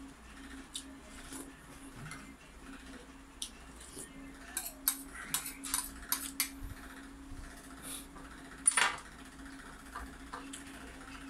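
A metal spoon clinking and scraping against a ceramic bowl of boiled carabao meat: scattered clicks, a quick run of them midway, and one louder clatter about three-quarters through. A steady low hum runs underneath.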